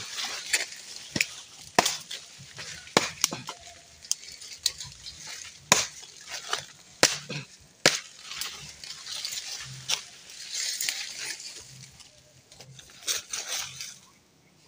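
Dry sticks and twigs being snapped and handled while gathering firewood: irregular sharp snaps over a steady crackle and rustle of dry wood and leaves, dying down near the end.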